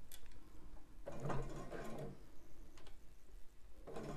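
Juki sewing machine stitching a long basting stitch through fabric in short runs: one starting about a second in and another near the end.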